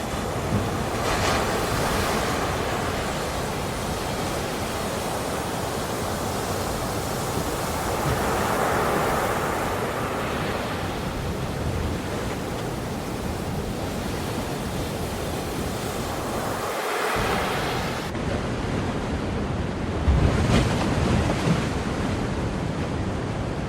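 Ocean waves washing onto the shore, a steady surf hiss that swells and recedes every several seconds as each wave breaks.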